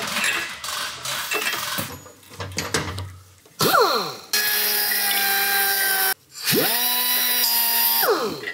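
Small hand-held cut-off grinder cutting metal, with some rattling first. There is a brief burst that winds down, then a steady whining run of about two seconds. A second run spins up, holds steady and winds down near the end.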